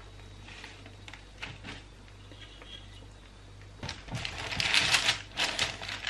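Rubber spatula scraping and pushing a sticky marshmallow and oat mass across baking paper on a metal baking tray: a quick run of rustling scrapes that begins about four seconds in. Before that there is only a low steady hum.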